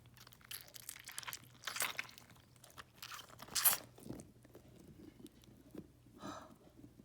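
Hands rummaging through the small balls that fill a stuffed toy: irregular crunching and crackling rustles, with louder crunches about two seconds and three and a half seconds in.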